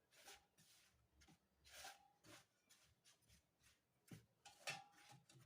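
Faint, irregular scraping strokes of icing sugar and CMC powder being stirred together in a bowl.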